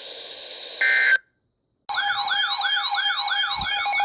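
EAS receiver's hiss ends in a short burst of data tones, then a gap of silence, then an electronic siren-style alert tone wailing upward in repeated sweeps, about two and a half a second, announcing a new warning. Near the end a steady tone and beeping patterns join the wail.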